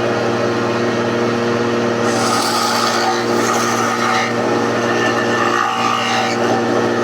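Electric hand planer motor running steadily with a constant hum; about two seconds in, the blades start cutting wood, adding a rasping hiss that comes and goes.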